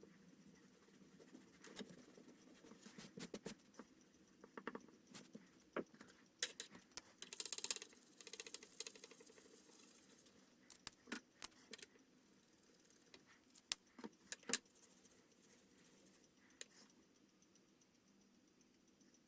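Faint scratching of a pen on drawing paper, mixed with light clicks and taps, with a longer scratchy stretch of strokes about seven seconds in.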